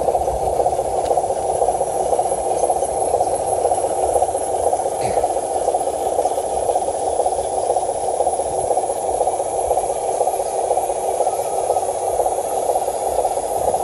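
RC dump truck's electric motor and gearbox whirring steadily as it drives, a constant, slightly rattling buzz.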